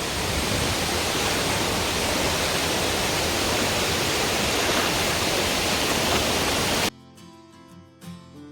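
Steady rushing of a waterfall and fast-flowing river in spate. It cuts off suddenly near the end, and quiet plucked guitar music follows.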